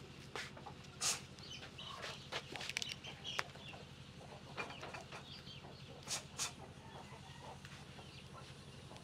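Small onion being peeled by hand: faint dry crackles and clicks of the skin and layers coming away, with a few sharper ones about a second in and around six seconds, over a steady low hum.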